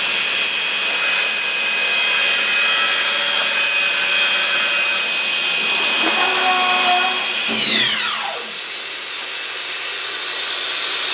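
A machine's motor running with a high-pitched whine over a steady hiss, then winding down quickly about seven and a half seconds in, leaving a softer hiss.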